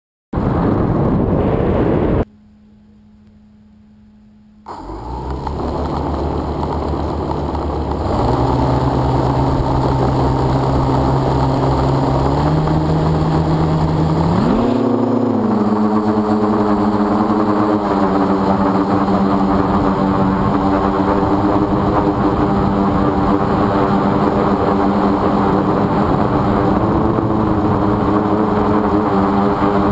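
Quadcopter motors running steadily in flight with a whirring hum. After a brief quieter dip near the start, the pitch steps up a few times and jumps higher about halfway through as the throttle changes.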